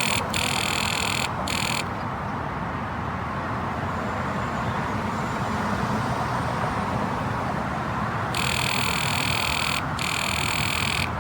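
Cordless impact wrench hammering on a car's lug nut in two bursts, one near the start and one from about eight seconds in, over a steady low background noise. The nut does not come loose, and the wrench is given up for a manual one.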